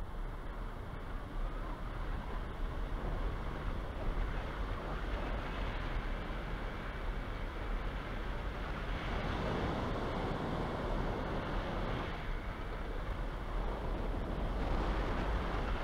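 Wind rushing over a hang glider's wing-mounted camera microphone in flight, a steady rumbling noise that swells around the middle and again near the end as the glider banks steeply.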